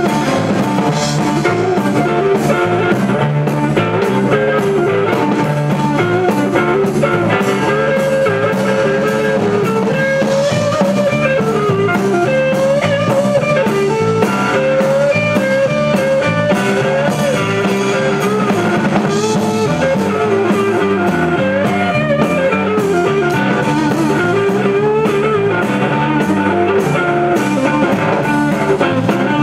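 Live blues band playing an instrumental passage: electric guitar over bass and drum kit, with a bending lead melody line.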